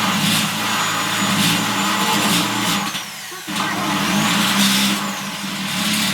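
Electric drill running under load as its bit cuts and enlarges a hole in steel. The motor stops briefly about three seconds in, then starts again.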